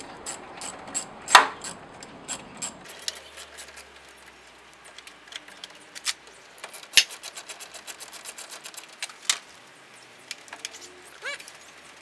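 Rapid, evenly spaced clicking for about the first three seconds, then scattered sharp clicks and knocks, the loudest a little over a second in, as a small hand tool works loose the lower turn-signal lamp section under a Ford F-350's headlight.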